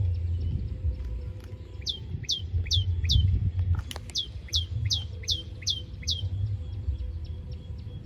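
Birds calling: a rapid run of short, sharp down-slurred notes, two or three a second, among fainter chirps, over a steady low rumble. A single click about four seconds in.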